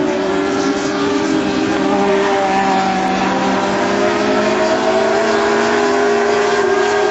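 Dwarf car racing engines running hard on a dirt oval, several overlapping engine notes, loud and steady with the pitch climbing slowly as the cars accelerate down the straight.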